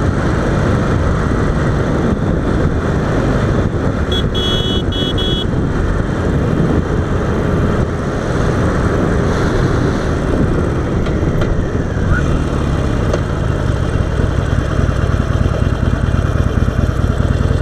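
Harley-Davidson Sportster 48's air-cooled V-twin running under way, mixed with heavy wind rush on a helmet-mounted microphone. About four seconds in, a brief high-pitched pulsing beep sounds for over a second.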